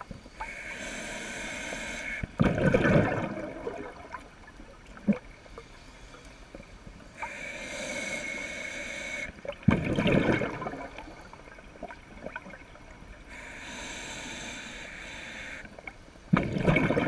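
A scuba diver breathing through a regulator underwater, close by. Three slow breaths, each a steady hiss of about two seconds as the demand valve opens, followed by a louder burst of exhaled bubbles gurgling out. Roughly one breath every seven seconds.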